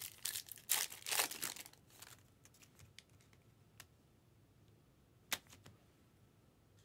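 Crinkling and rustling of a foil trading-card pack wrapper and cards being handled, in a burst of crackles over the first two seconds, then a few faint ticks and one sharp click a little after five seconds.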